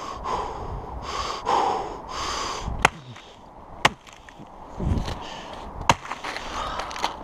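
An axe chopping at a tree trunk: several sharp hits spaced a second or two apart, after a run of heavy, breathy puffs.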